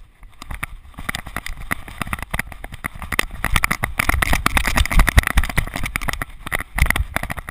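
Wind rushing and buffeting over the microphone of a GoPro camera strapped to a running Border Terrier, with rapid irregular knocks and rattles of the camera as the dog bounds along. It starts about half a second in and is loudest around the middle.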